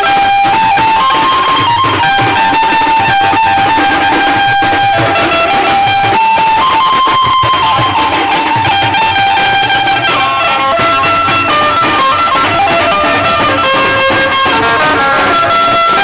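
Loud music with a melody of held notes stepping up and down over dense drumming.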